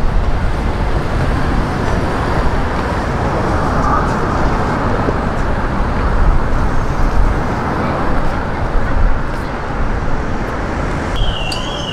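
Steady city road traffic noise, the rumble of passing vehicles. Near the end a siren starts, warbling quickly up and down.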